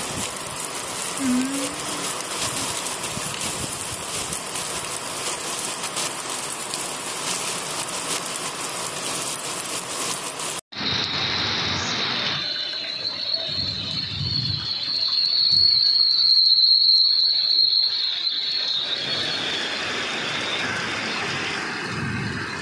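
Heavy monsoon rain hissing steadily on a street. About ten seconds in the sound cuts abruptly to floodwater running through a street, with a steady high-pitched insect-like whine over it that swells a few seconds later and fades near the end.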